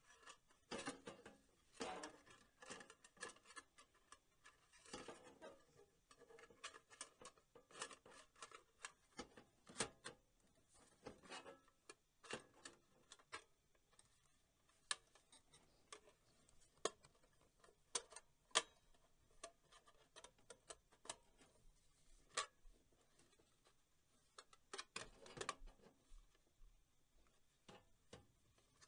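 Irregular light clicks, taps and knocks of sheet metal being handled: a computer power supply's steel housing shifted and bumped against the steel PC case as it is fitted back into place.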